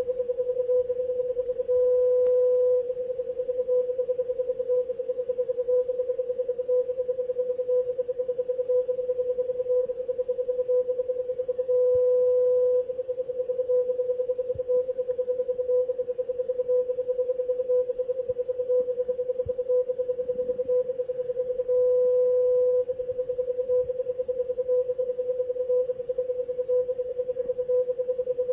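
A VLF time-signal transmission on 25 kHz, which the uploader tentatively takes for RJH-86, received on a shortwave/VLF software radio in CW mode and heard as a steady beat tone of about 500 Hz. The tone is keyed in rapid short pulses, with a held tone about a second long every ten seconds, over faint static hiss.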